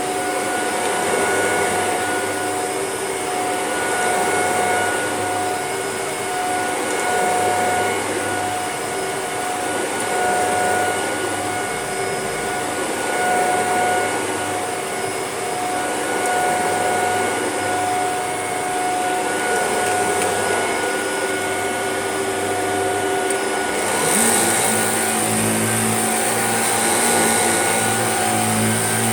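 Shark vacuum cleaner running on carpet: a steady motor whine whose tones come and go. About 24 seconds in, the sound changes, with a brighter hiss and a deeper hum appearing.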